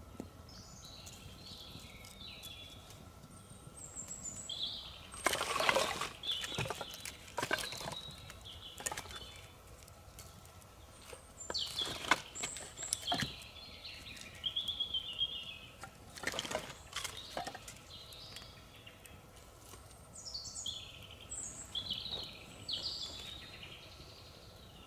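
Forest songbirds singing short, varied phrases over a faint steady background, with a few brief noisy bursts close by in the middle stretch.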